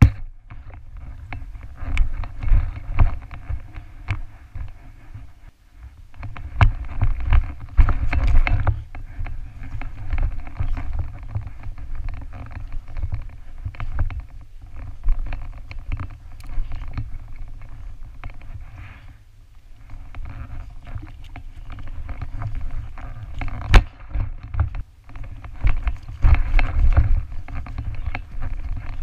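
Muffled rumbling, rubbing and occasional sharp knocks from a head-mounted action camera in its housing as the wearer climbs an obstacle wall, with a steady hum underneath.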